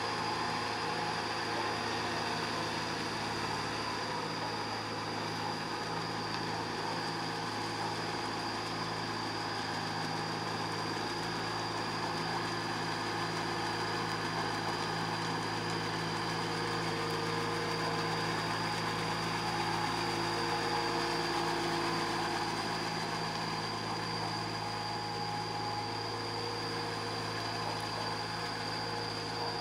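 Small tractor's diesel engine running steadily under load while pulling cage wheels and a leveling board through flooded paddy mud, with a steady high-pitched whine above it.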